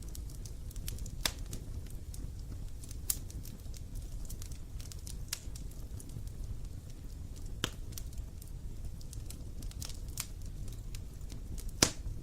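Wood fire burning with a low steady rumble and scattered sharp crackles and pops, the loudest pop near the end.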